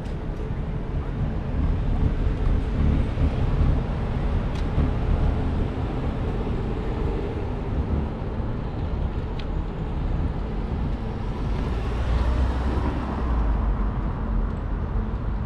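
Street traffic noise with a continuous low rumble, heard from a bicycle riding through city streets; the noise swells about twelve seconds in.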